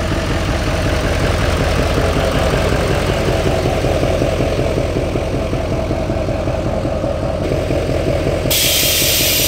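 Lifted diesel pickup's engine running steadily as the truck pulls in and idles. Near the end a loud hiss of compressed air venting from its rear air-bag suspension cuts in.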